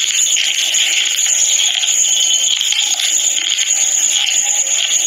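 Person chewing thin, crunchy baked edible clay, the faint crunches almost buried under loud, steady background hiss.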